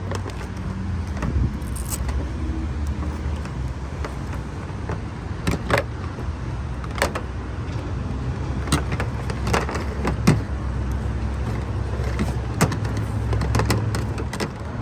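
Scattered small clicks and knocks of parts and cable being handled, over a steady low rumble.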